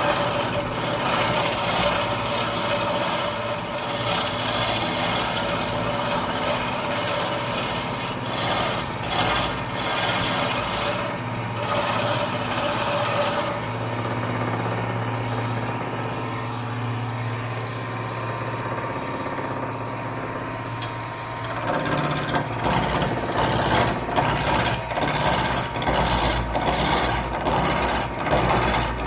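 Hand chisel cutting a long wooden spindle spinning on a wood lathe: a steady rasping scrape of tool on wood. Past the middle the cutting stops for several seconds, leaving the lathe's steady hum. The scraping then resumes, choppier, in many short strokes.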